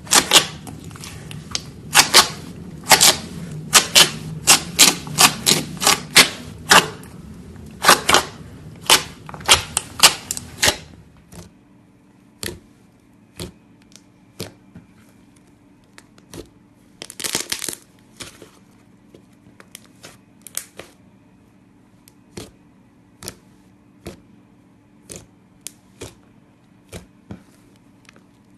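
Slime being squeezed and poked, making sharp popping clicks. They come thick and fast for about the first ten seconds, then turn sparser and quieter.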